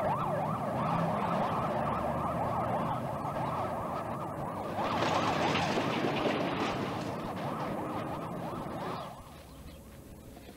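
Several sirens wailing at once in fast, overlapping up-and-down sweeps over a dense city traffic din, the whole racket fading out near the end.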